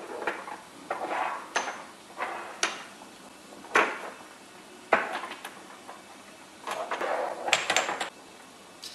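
Glass spice jars with plastic lids being picked up, set down and shuffled along a countertop: a string of sharp knocks and clinks, roughly one a second, with short scraping slides between some of them.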